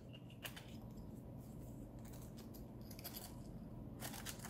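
Faint clicks and light rattles of small rotary-tool accessories being handled and lifted out of a wooden accessory case, a little busier near the end.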